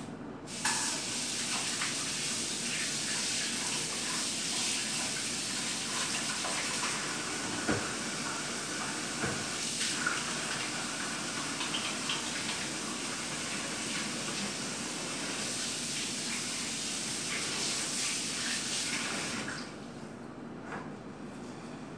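Kitchen tap running into a sink while hands are washed under it, a steady splashing with a few light knocks. It turns on just under a second in and shuts off near the end.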